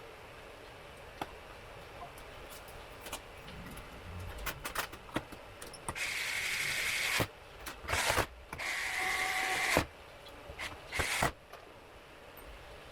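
Small electric screwdriver running in four short bursts, driving the screws that hold a PlayStation 5 back together, after a few seconds of light clicks from handling the parts.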